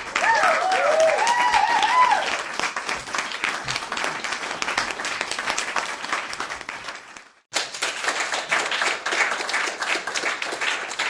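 Crowd applauding, with cheers over the first two seconds, the clapping thinning and dying away about seven seconds in. After a brief silent gap a second round of crowd applause starts and goes on steadily.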